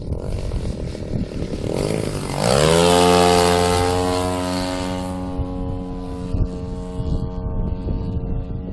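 A 35% scale Sbach radio-controlled aerobatic plane making a low pass: the engine and propeller grow louder about two seconds in and drop sharply in pitch as the plane goes by. The plane then drones on at a steady pitch, fading as it climbs away, with wind rumbling on the microphone underneath.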